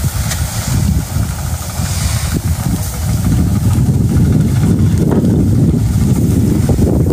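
Rice grain hissing as it pours out of sacks onto a pile of grain on a barge deck, over a low rumble that gets louder about three seconds in.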